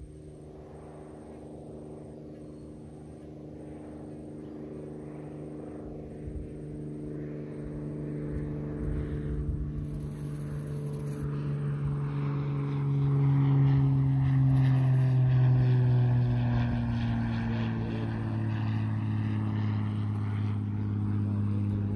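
Aircraft passing overhead: a low engine drone that slowly grows louder and falls in pitch, loudest a little past the middle, then easing off slightly.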